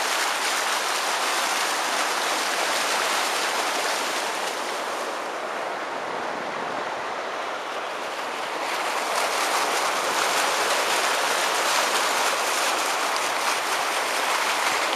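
Floodwater rushing across a road, a steady, even rushing noise that drops a little for a few seconds midway.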